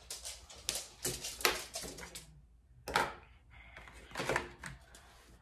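Scattered light clicks and taps as felt-tip markers are handled and tapped on a sheet of crinkled aluminium foil.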